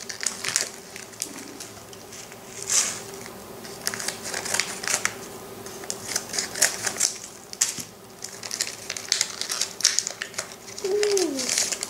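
LOL Surprise blind-bag packaging crinkling and crackling in quick, irregular clicks as a small packet is handled and torn open, with scissors snipping through a paper packet about midway.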